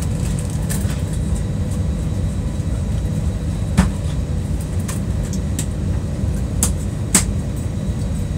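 Airliner jet engines running, heard from inside the passenger cabin as a steady low rumble with a faint steady hum, before takeoff. A few sharp clicks stand out about four and seven seconds in.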